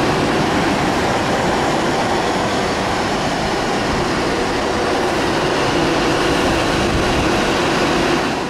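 Avanti West Coast Class 390 Pendolino electric train running past along the platform: a steady, loud rumble of wheels on rail.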